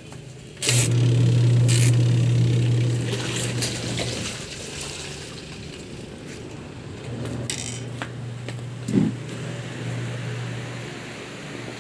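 Twin-tub washing machine's spin dryer switched on: its motor starts with a sudden, steady low hum about a second in, loudest for the first few seconds and then fainter, with scattered clicks and knocks over it.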